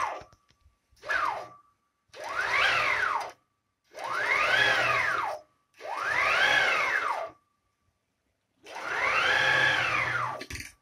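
Closed-loop JSS57 stepper motor driving a DIY CNC's Y-axis along its ball screw in a series of separate moves. Each move is a whine that climbs in pitch as the axis speeds up and drops as it slows to a stop. There are two short falling whines at the start, then four full moves of about a second and a half each with pauses between.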